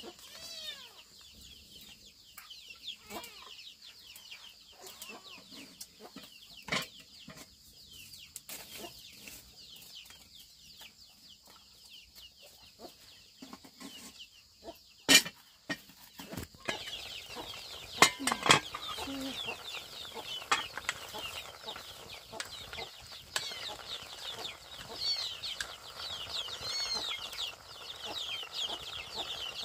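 Chickens clucking with many short high chirps, busier in the second half, and a few sharp knocks around the middle.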